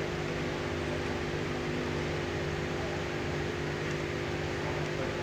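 Steady low mechanical hum, like a running fan, holding the same pitch throughout.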